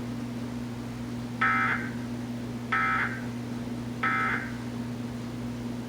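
Emergency Alert System end-of-message: three short warbling SAME digital data bursts, about a second apart, over a steady low hum.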